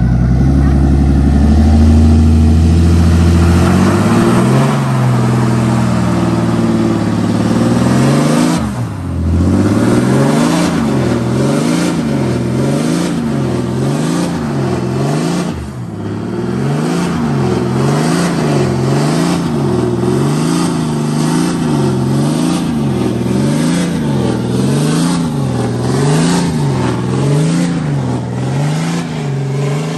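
Deleted and tuned Cummins diesel in a 2021 Ram pickup, revving hard while the rear tyres spin in a burnout. It starts as a low steady drone, then the engine pitch swells up and down about once a second, with two brief drops before climbing again.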